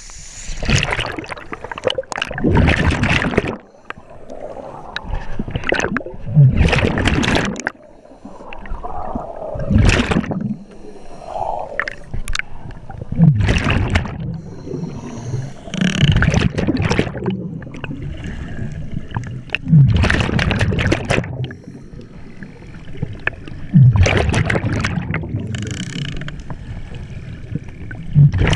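Scuba diver breathing through a regulator underwater, with a loud rush of exhaled bubbles about every three to four seconds.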